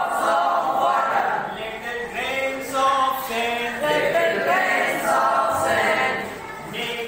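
A class of voices chanting a poem in unison with a male teacher, in a sing-song rhythm.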